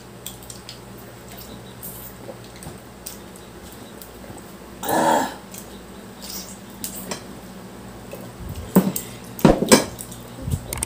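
Eating at the table: scattered clicks and clinks of utensils and plates while crab shells are picked apart, with a few louder cracks close together near the end. A short hum-like vocal sound comes about halfway through.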